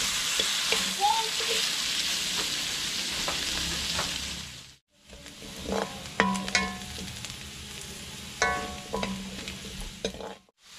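Pork chops sizzling as they fry in a pan, cut off abruptly a little before halfway. After the cut comes a quieter stretch of stirring with several sharp clinks and scrapes of a utensil against the pan, cut off again near the end.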